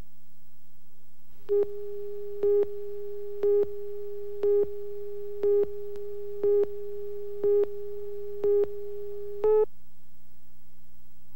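Broadcast tape slate beeps: nine short identical beeps on one steady mid-pitched tone, one a second, marking the countdown to the next spot on the master reel. A steady low electrical hum runs underneath.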